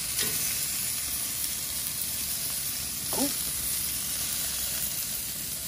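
Vegetables marinated in Italian dressing sizzling steadily in a perforated grill pan over the grill's flame.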